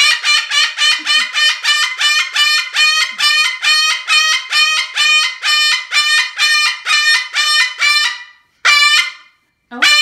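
Moluccan cockatoo screaming, very loud: a rapid, even run of harsh calls at about three a second that stops about eight seconds in, followed by two single calls near the end.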